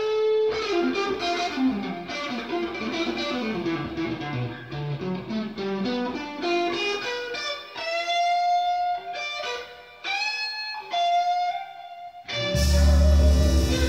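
Electric blues guitar solo played back through a stereo power amplifier and speakers: single bent and sustained notes with short pauses. Near the end the music turns suddenly fuller and louder, with heavy bass.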